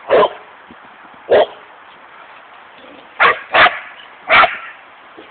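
A dog barking in single loud barks, five of them irregularly spaced, two in quick succession about three seconds in.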